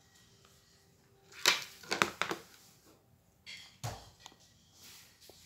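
Knocks and rubbing of a phone being handled and moved: a sharp knock about a second and a half in, two more around two seconds, and a duller thump near four seconds.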